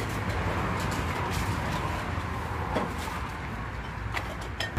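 Steady outdoor background ambience: a low hum and rumble with a few faint short clicks.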